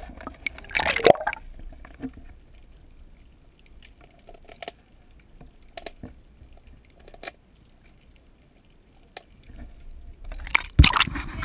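Water sloshing against an underwater camera, with scattered sharp clicks and two louder surges of water noise, one about a second in and one near the end.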